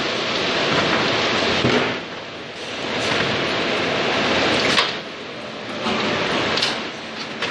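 Wooden europallets rumbling along the steel conveyor of a pallet sorting line. The noise swells as each pallet passes and dips between them, with sharp clacks of wood on metal in the second half.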